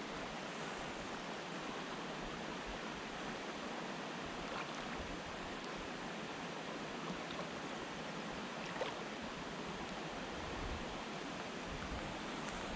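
Steady rushing of running water, with a few faint clicks.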